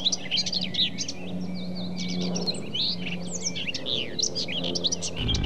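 Many small birds chirping and twittering at once, a dense overlapping chorus, over a steady low hum. A heavier low sound comes in near the end.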